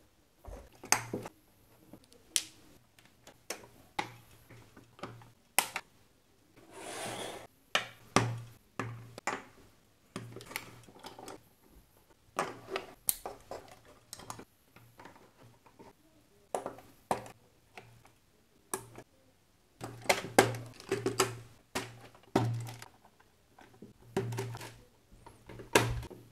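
LEGO plastic bricks and parts being handled and pressed together: irregular clicks and taps, with a short scraping rustle about seven seconds in.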